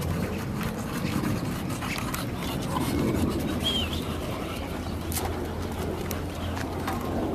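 Footsteps of people and English bulldogs walking on pavement: scattered light clicks over a steady low rumble. One short bird chirp comes about halfway through.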